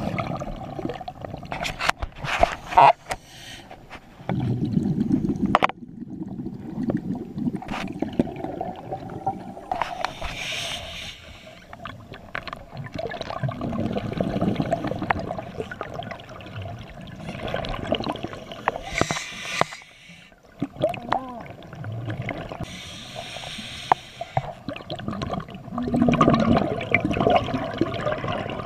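Scuba diver breathing through a regulator underwater: short hissing inhales alternating with gurgling bursts of exhaled bubbles, slow breaths several seconds apart.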